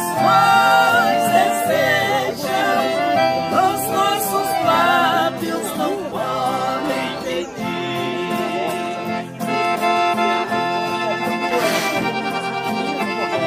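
Sertanejo music played live: two piano accordions carry the melody over two strummed acoustic guitars in an instrumental passage.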